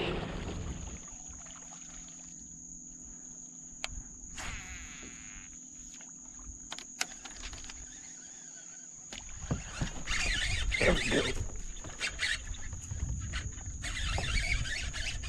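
Steady high-pitched drone of marsh insects, with a few faint clicks. From about nine seconds in, gusts of wind on the microphone.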